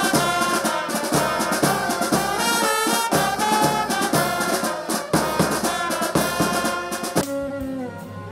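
Brass band of trombones, euphonium and snare drums playing a tune. It stops abruptly about seven seconds in and gives way to quieter instrumental music.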